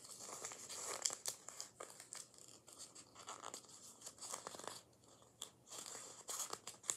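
Paper and sticky tape being handled, with irregular crinkling and crackling.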